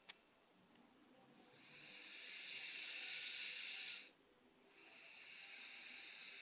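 Red Doberman pinscher snoring in its sleep: two long, airy, high-pitched breaths, the first swelling and cutting off sharply about four seconds in, the next starting under a second later.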